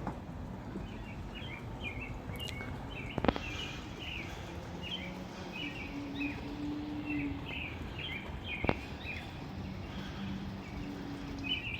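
Small birds chirping in quick, short, high calls over steady outdoor background noise, with a faint low drone and two sharp clicks, about three seconds in and near nine seconds.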